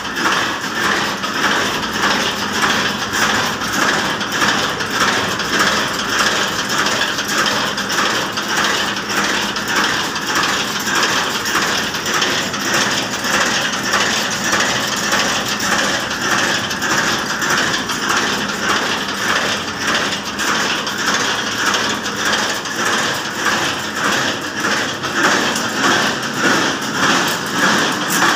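Automatic barbed wire making machine running: the barb-twisting mechanism and winding spool clatter rapidly and steadily, with a regular pulse.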